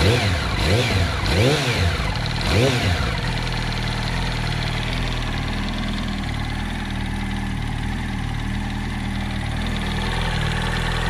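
2007 Yamaha R1's inline-four engine blipped quickly about four times in the first three seconds, then idling steadily. It carries a knocking noise that the owner cannot place, wondering whether it comes from the camshaft or from the clutch springs or basket.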